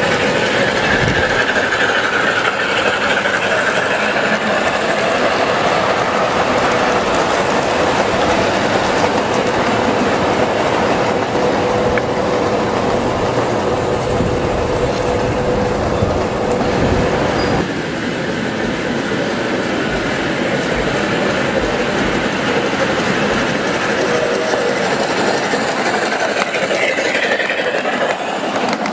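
A 1/8 scale ride-on miniature train running along the track, its wheels clicking over the rails with a steady whine; the sound changes abruptly about two-thirds of the way through.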